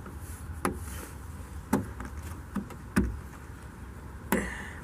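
Sharp plastic clicks and knocks, four of them about a second apart, the last near the end followed by a short rattle, as push-in plastic rivet clips are pried out of a trunk-lid liner with a plastic trim tool.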